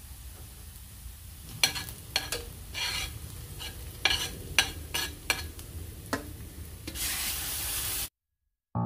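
A slotted metal spatula scraping and tapping against a stainless steel skillet as onions and garlic sizzle in oil, the scrapes coming in quick strokes from about a second and a half in. Near the end a louder hiss of sizzling lasts about a second, then the sound cuts off suddenly.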